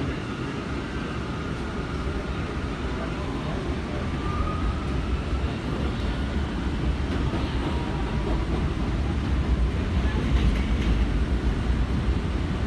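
Ride noise inside a moving R179 subway car: a steady rumble of wheels on track that grows gradually louder, with a faint rising whine about four seconds in.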